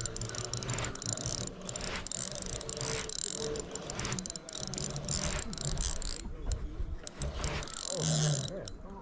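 Fishing reel being cranked, its gears and ratchet clicking repeatedly as line is reeled in.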